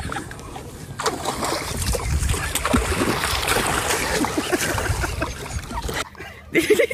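A plastic kayak tipping over at a bank, with the water splashing and sloshing as the person goes in. Near the end comes a brief, louder sound of another kind.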